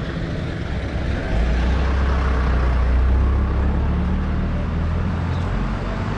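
A motor vehicle's engine rumbling as it passes, coming in strongly about a second in and easing off near the end, over general street traffic noise.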